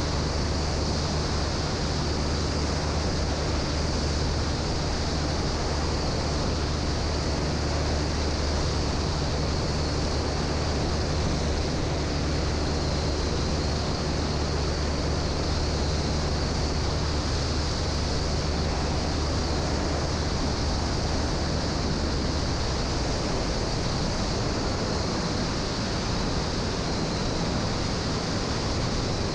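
Piper J-3 Cub's engine and propeller droning steadily in flight, heard under a heavy rush of wind over a wing-strut-mounted microphone. The low engine note eases somewhat late on.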